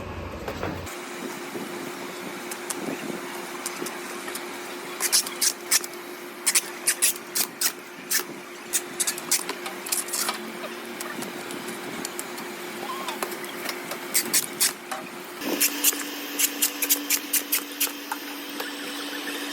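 Airport luggage-wrapping machine running with a steady motor hum while plastic stretch film crackles and snaps as it winds around a suitcase; the hum drops in pitch about three-quarters of the way through.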